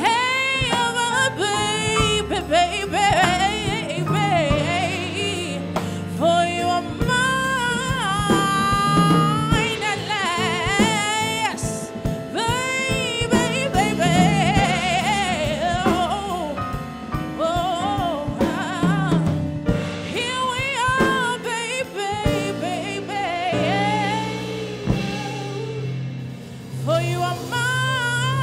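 A woman singing a soulful, gospel-tinged ballad live, with wide vibrato on long held notes and sliding runs, backed by electric keyboard and drum kit.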